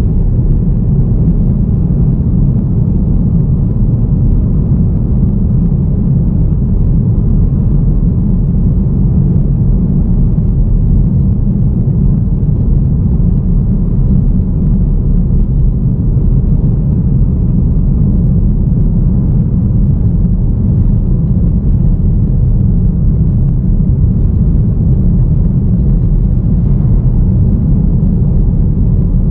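Car driving steadily along a road: a constant low rumble of engine and tyre noise.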